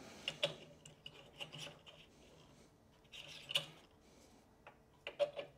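Faint clicks and brief rubbing as a wooden pen blank with a brass tube is handled and turned over beside a disc sander's table. A faint steady low hum runs underneath.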